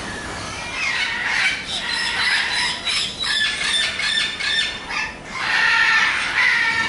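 A flock of cockatiels screeching, with many shrill, overlapping squawks that start about a second in and carry on with only a brief lull.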